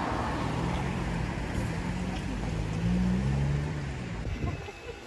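Road traffic: a car driving past on a city street, with tyre noise and a low hum that swell about three seconds in and fade away near the end.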